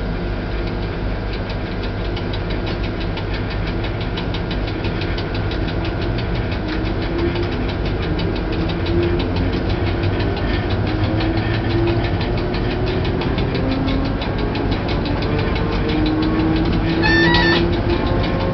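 Electric locomotive running, heard from inside its cab: a steady low rumble and rattle, with a motor whine that glides slowly up in pitch several times. A brief high tone sounds near the end.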